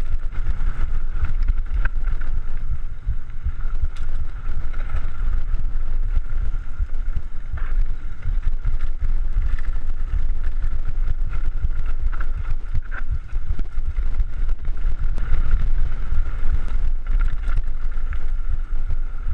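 Mountain bike descending a dirt singletrack at speed, heard through an action camera's microphone: heavy wind buffeting and the rumble and rattle of the bike over the trail, with a steady high whir over it.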